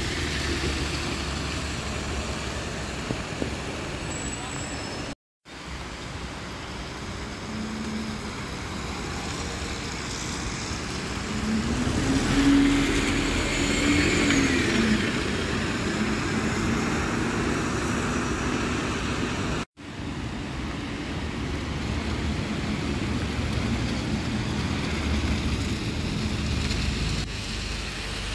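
Diesel bus engines running at a bus stand, a double-decker and a single-decker moving off, with traffic noise. About twelve seconds in, one engine's pitch rises and then falls as it pulls away. The sound cuts out sharply for a moment twice.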